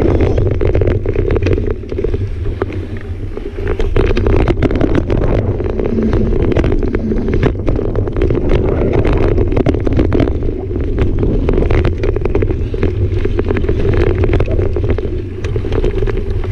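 Mountain bike riding down a dirt singletrack: steady wind noise on the camera's microphone over the rumble of the tyres on the ground, with constant irregular rattling and clicking from the bike over rough terrain.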